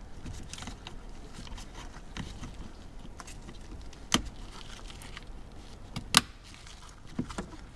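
Plastic airbag connector on a steering-wheel clock spring being handled and clicked home. There are two sharp clicks about two seconds apart as the connector and its security tab lock, over faint rustling of plastic parts.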